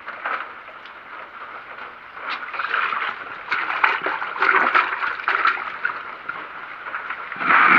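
Water splashing and spattering onto a wet concrete floor and wall, in uneven bursts with many small crackling splashes from about two seconds in, and a louder burst near the end.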